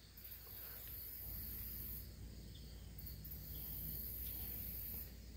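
Quiet background: a steady low hum with a faint high-pitched hiss and no distinct event.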